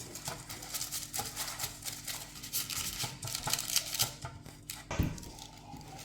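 Irregular scratchy rustling of baking paper in a cake mold as it is coated with oil, with a soft knock about five seconds in.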